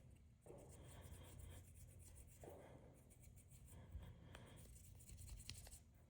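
Cotton swab scrubbing dirt out from inside a pocketknife's frame: faint scratchy rubbing, with a few light ticks.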